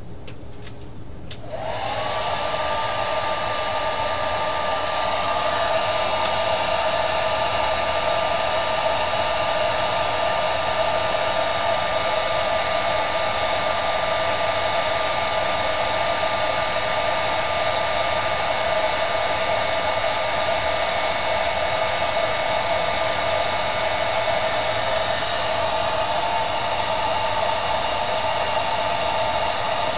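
Handheld hair dryer switched on about a second and a half in, its motor whine rising briefly as it spins up, then blowing steadily. It is drying freshly applied liquid latex on a mask repair.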